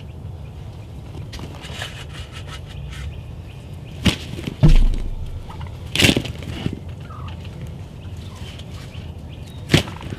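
Wild turkey gobbler flogging a jake decoy, its wings slapping the decoy in a few sharp knocks several seconds apart; the loudest is a heavy thump about four and a half seconds in.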